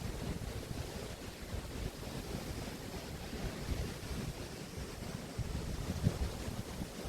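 Waves washing onto the beach of the Río de la Plata estuary, a steady hiss of surf, with wind gusting on the microphone.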